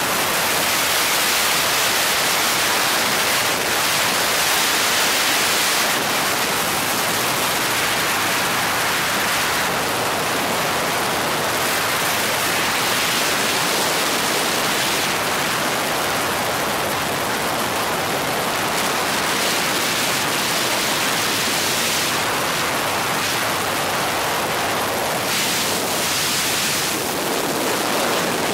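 Steady, even rushing noise aboard a helicopter in flight, with no distinct rotor beat standing out.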